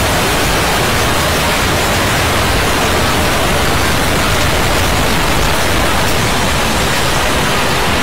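Loud, steady static-like noise spread evenly from low to high pitches, unchanging throughout, with no tones or beats in it.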